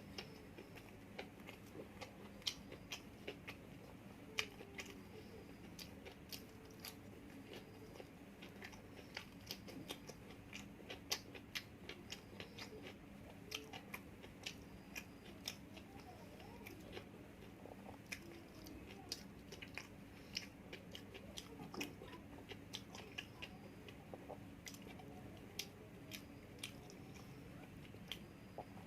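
A person chewing food close to the microphone, with many short, sharp wet mouth clicks at an irregular pace.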